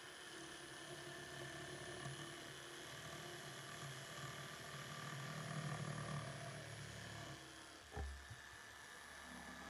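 Benchtop electric saw running and cutting through a wooden board, a steady motor hum that grows louder in the middle as the blade works through the wood. A single knock comes near the end.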